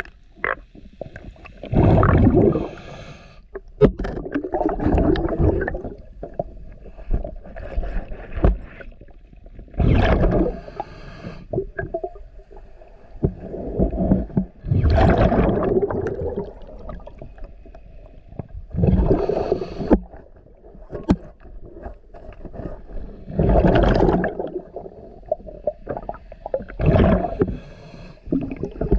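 A diver's breathing regulator heard underwater: a loud gush of exhaled bubbles about every four to five seconds, with fainter hissing breaths drawn in between.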